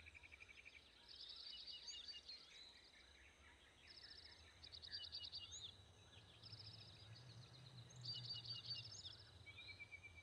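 Faint bird calls: several birds chirping, with short rapid trills and rising whistles coming in a few bursts, over a low steady hum.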